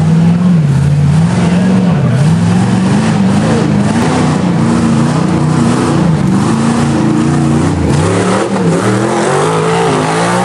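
Rock buggy's engine revving hard as it climbs a steep rocky hill, its pitch rising and falling again and again as the throttle is blipped and held.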